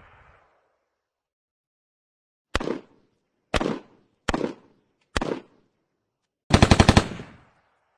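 M4 carbine (5.56 mm) firing on full auto: four short bursts of a few rounds each, about a second apart, then a longer burst of about eight rapid rounds near the end, each burst trailing off in an echo.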